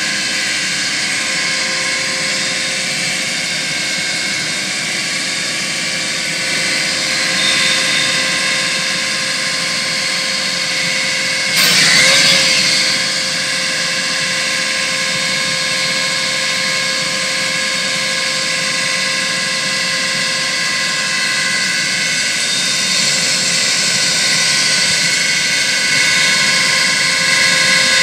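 Bobcat SG60 stump grinder's cutting wheel spinning freely on its hydraulic drive, a steady mechanical whine over the track loader's running engine. About twelve seconds in there is a brief louder surge in which the pitch dips for a moment before it settles back.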